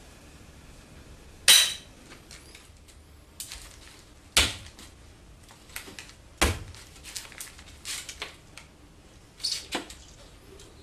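Sharp clinks and knocks of a Japanese matchlock gun (tanegashima) being handled upright. The loudest comes about a second and a half in, with two more strong ones a few seconds apart and a run of lighter taps near the end.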